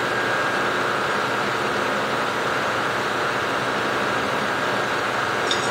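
Milling machine running at a steady pitch while a corner-rounding end mill cuts the last corner of a steel bar.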